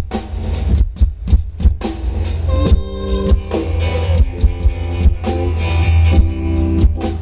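Live band playing through a PA during a sound check: drum kit hits over a heavy, constant bass boom, with sustained guitar chords coming in about three seconds in.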